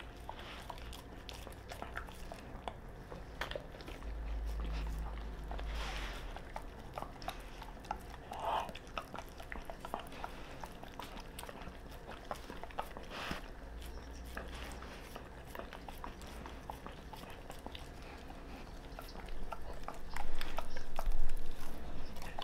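A Doberman biting and chewing at a small pumpkin filled with raw meat: wet chewing with many short crunching clicks, getting louder near the end.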